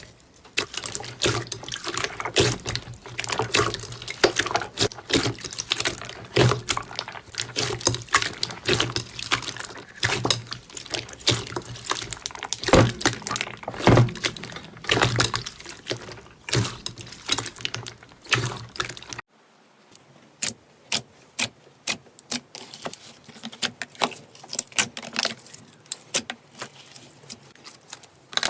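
Slime being squeezed and worked by hands, making dense wet squishing with sticky clicks and pops. About 19 seconds in, the sound changes abruptly to a quieter stretch of sparser, sharper pops and clicks.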